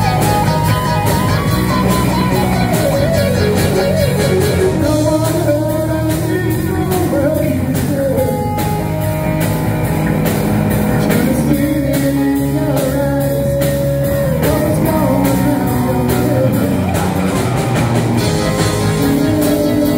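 Live rock band playing: electric guitar, bass guitar and drums, with a wavering lead melody line on top.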